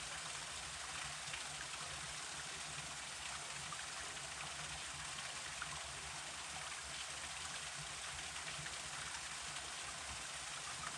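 Forest river flowing: a steady rush of running water with small splashes and droplets scattered through it.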